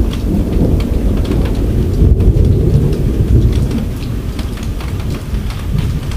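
Thunder rumbling through heavy rain, the rumble heaviest about two to three and a half seconds in, with scattered raindrops ticking close by.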